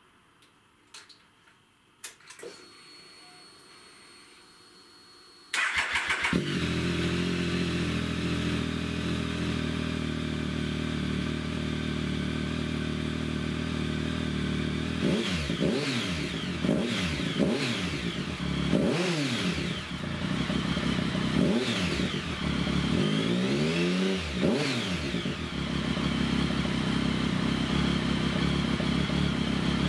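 Triumph Tiger 1050's inline three-cylinder engine starting for the first time through a newly fitted Arrow exhaust: after a few faint clicks and a thin high whine, it catches about six seconds in and settles into a deep idle. The throttle is blipped repeatedly in quick revs before it returns to a steady idle.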